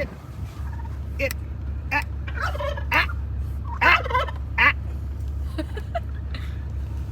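Male turkey (tom) gobbling, several short loud bursts in quick succession, loudest about four seconds in, over a steady low hum.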